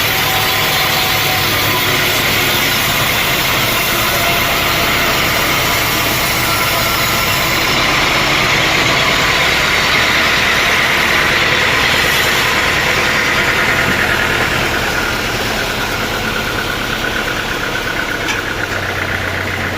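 Sawmill saw running and cutting through a teak log, a loud steady machine noise over a low engine drone. The cutting noise eases off about three-quarters of the way through while the drone carries on.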